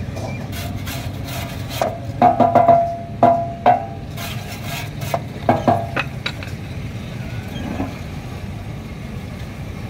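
A wire brush scrubbing and knocking against a copper radiator's metal tank, giving short ringing metallic clanks in two clusters, about two seconds in and again about five seconds in, over a steady low hum.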